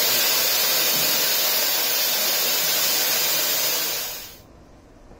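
Midland Railway 4F 0-6-0 steam locomotive 43924 standing with steam escaping from it in a loud, steady hiss, which drops away abruptly about four seconds in.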